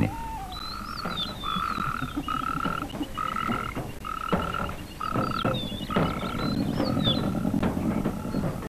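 Wildlife sounds: a call of one short, steady, fairly high note repeated about nine times, roughly once a second, with brief chirps above it.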